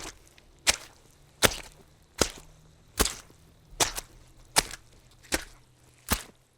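Soggy, wet footsteps walking at a steady pace: about nine sharp steps, roughly one every three-quarters of a second.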